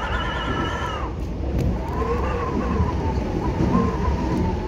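Wind whistling inside a moving subway car over the low rumble of the train running: a set of steady high tones that cut off about a second in, then a wavering, lower howl that rises and falls.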